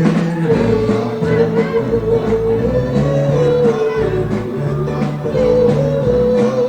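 Live cover band playing a doo-wop song: bass notes change every second or so under a long held melody line, with guitar.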